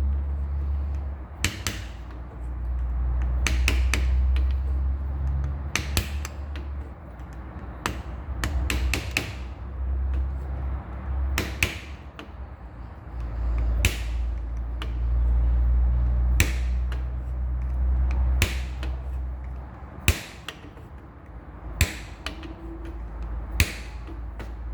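Hammer striking metal in single sharp taps, about one every two seconds, driving a part down the steering shaft of a 1976 Corvette's steering column toward its seat. A steady low rumble runs underneath.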